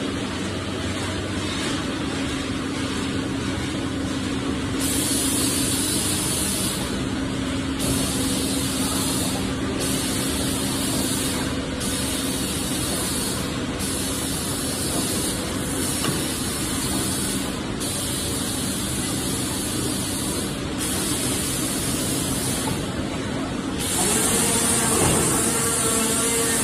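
Machinery of a pet food production line running: a steady mechanical hum with a high hiss that cuts in and out every two seconds or so.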